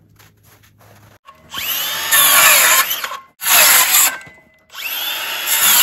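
A power tool runs in three bursts: a long one starting about a second and a half in, a short one, then another long one, each with a sweeping rise and fall in pitch.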